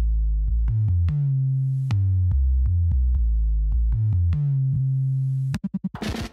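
Electronic background music: a drum-machine beat over a synthesizer bass line. Near the end the beat breaks into a fast stuttering roll.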